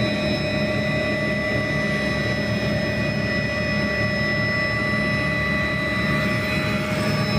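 Helicopter engine and rotor running steadily in low flight just after lift-off, heard from inside the cabin, with a steady high whine over the rotor noise.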